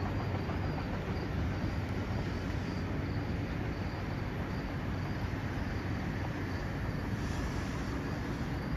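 Steady low rumble of an NJ Transit Arrow III electric commuter train going by, its horn just ended. A faint insect chirp pulses high and even, about twice a second.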